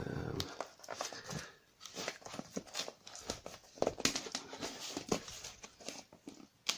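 Packaging being handled and unwrapped: intermittent rustling and crinkling with scattered small clicks and knocks.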